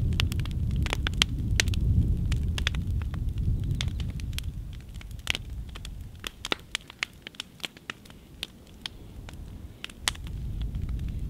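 Fire burning through an upright piano's wooden case, crackling with many sharp pops and snaps over a low rumble. The rumble fades for a few seconds past the middle, leaving scattered pops, then comes back near the end.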